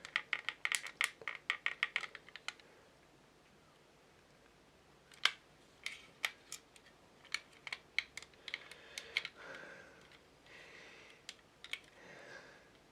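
Small plastic scale-model parts clicking and tapping as they are handled and test-fitted: a quick run of clicks at first, a quiet pause, then scattered single clicks.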